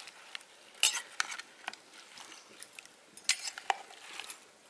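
Metal ladle stirring chunks of white yam in a metal cooking pot, with scattered clinks and scrapes of the ladle against the pot, bunched about a second in and again about three and a half seconds in.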